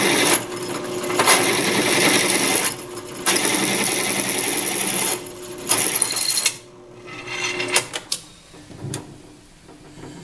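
Drill press boring a 27/64 inch hole through a metal plate. The cut is broken by short pauses about every two and a half seconds as the bit is pecked to break the chip. The cutting stops about six and a half seconds in, leaving a few light clicks and knocks.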